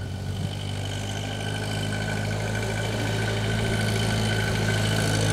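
International Harvester 2444 tractor engine running steadily, getting gradually louder as the tractor comes closer.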